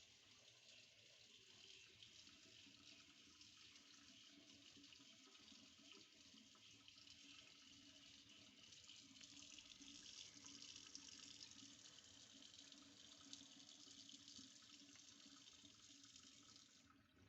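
Water running steadily from a kitchen tap, faint, then shut off near the end.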